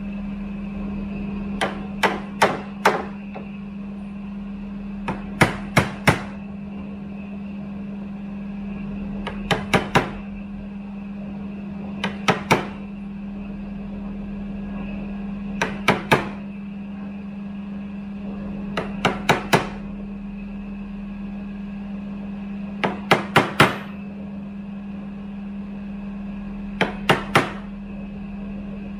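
Wooden mallet striking a wood chisel, chopping out the waste between two saw cuts in a timber roofing batten. The blows come in quick groups of two to four, every three or four seconds, over a steady low hum.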